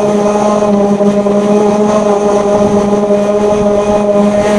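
Hand-held power sander running steadily against a car door's painted metal panel, giving a continuous pitched hum.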